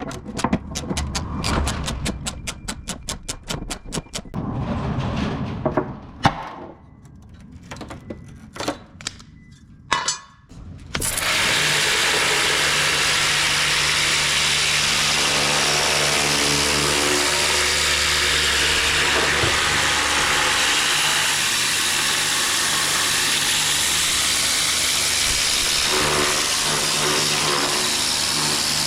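For the first several seconds there is a run of quick clattering strokes and knocks. About eleven seconds in, a jet washer starts and runs steadily: a motor hum under the hiss of the high-pressure water spray.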